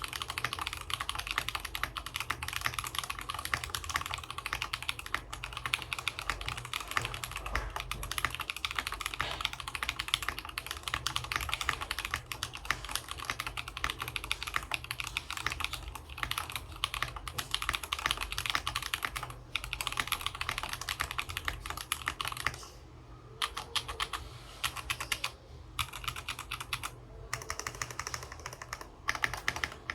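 Fast continuous typing on a TX65 mechanical keyboard with lubed Holy Panda tactile switches on an aluminum plate and PBT keycaps: a dense stream of key clacks, with a few short pauses near the end.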